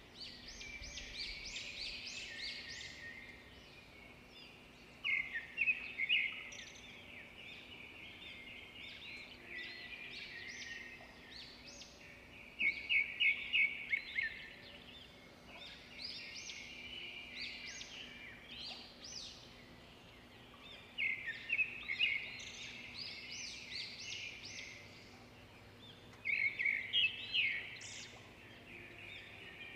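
Songbird singing in short bursts of rapid chirping notes, a phrase every five to eight seconds, over fainter continuous bird chatter.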